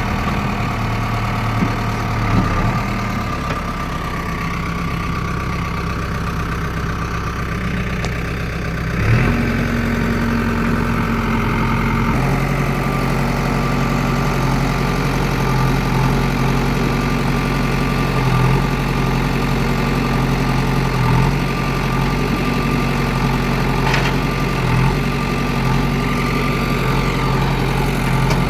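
JCB 3DX backhoe loader's diesel engine running. About nine seconds in it revs up to a higher, louder note and holds there, with small regular swells in the revs.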